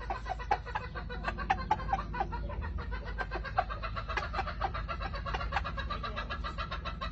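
Gamefowl roosters clucking in short, rapid calls, with rustling in the straw bedding.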